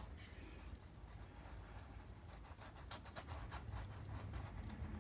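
Faint paintbrush strokes dabbing and rubbing paint onto a painting, a few soft scratchy touches over quiet room tone.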